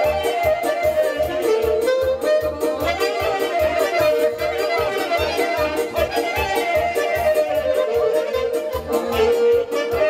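Romanian hora dance music: a lively instrumental melody over a steady, even beat of about three pulses a second.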